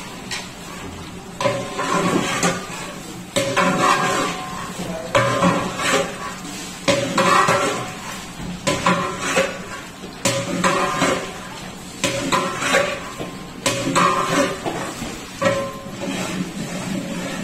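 Long metal ladle scraping and knocking inside a large aluminium cooking pot as a simmering dish is stirred, each stroke ringing off the pot's sides. The strokes come irregularly, every second or two.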